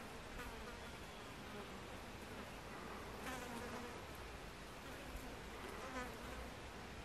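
Asian hornet's wings buzzing faintly in short flights: briefly near the start, again about three seconds in, and once more about six seconds in, each buzz rising and falling in pitch.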